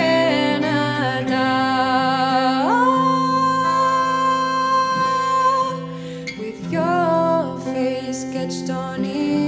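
Woman singing a slow ballad over acoustic guitar: her voice slides up about two and a half seconds in and holds one long note for about three seconds, then a further phrase begins near the end.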